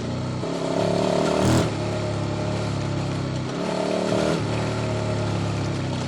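QJ Motors SVT650X's V-twin engine running through an Arrow Racetech exhaust on custom headers while riding. The steady engine note changes twice, about half a second in and about three and a half seconds in, for about a second each time, with a brief loud burst near the end of the first change.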